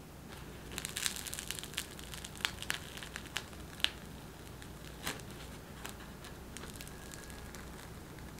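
A freshly baked bagel being torn apart by hand: the crust crackles and the soft crumb tears in a quick run of crisp crackles that thins out after about four seconds.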